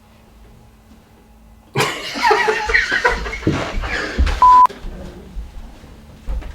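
A voice breaking suddenly into loud laughing and exclaiming, cut by a short censor bleep about four and a half seconds in.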